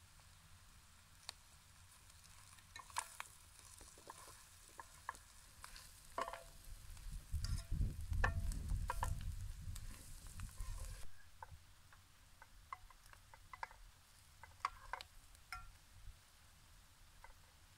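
A spatula stirring chopped liver and kidney in a metal pan over a campfire, with irregular clicks and scrapes against the pan and a light sizzle. A low rumble comes in around the middle, where the stirring is loudest.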